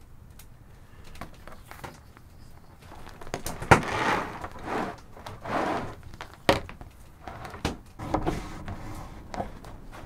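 A thin clear plastic sheet being flexed and slid over a wooden tabletop: rustling swishes, with a sharp snap about four seconds in and another about six and a half seconds in.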